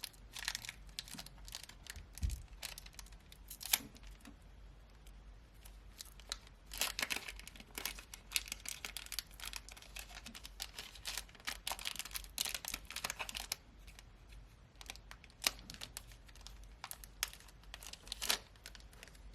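A trading card booster pack being torn open and handled: its wrapper tears and crinkles in short irregular bursts, with small clicks and rustles from the cards.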